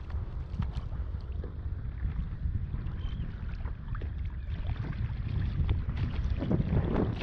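Wind buffeting the microphone over water sloshing against a kayak, with scattered small knocks, and a louder splash of water near the end.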